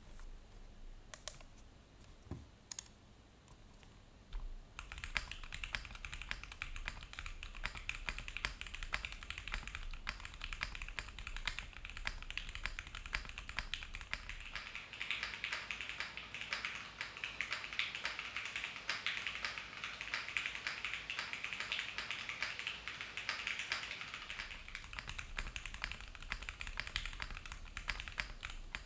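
Typing on a MONOKEI Kei V2 65% aluminium mechanical keyboard with lubed Gateron Mink linear switches, an aluminium plate and no foam. A few single keystrokes come first, then fast, continuous typing from about five seconds in.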